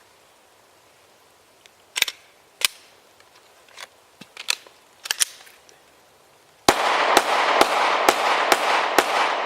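A few sharp clicks, then a Glock 17 9mm pistol firing six shots in quick succession, about half a second apart, with the report lingering after each shot.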